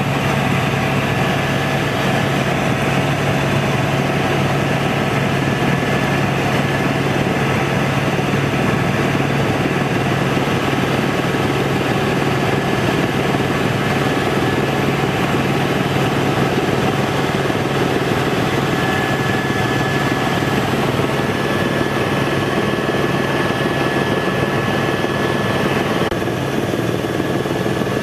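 Helicopter in flight heard from inside the cabin: steady loud turbine and rotor noise with a low hum.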